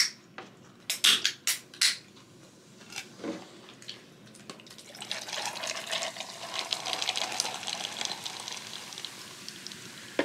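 Drink cans cracked open with a few sharp clicks, then the fizzy drink poured from the cans into glasses of ice, hissing and crackling through the second half.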